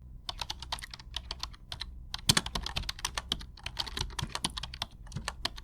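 Rapid, irregular clicking of typing on a keyboard, several keystrokes a second, over a faint steady low hum.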